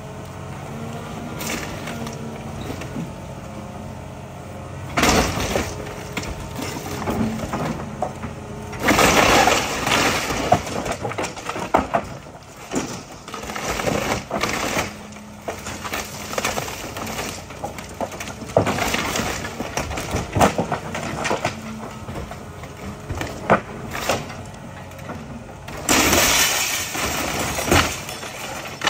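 John Deere excavator's diesel engine running while its bucket rips into a wood-framed house. After a few seconds of mostly engine, there are repeated loud crashes of splintering timber and breaking siding and roofing, in several bouts, with the longest near the end.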